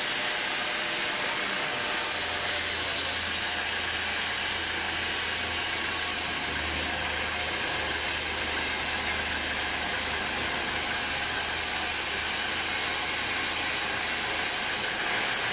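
Homemade band sawmill running with its blade cutting lengthwise through a teak log: a steady hiss of sawing over the machine's running noise. A low hum comes in about two seconds in and drops away near the end.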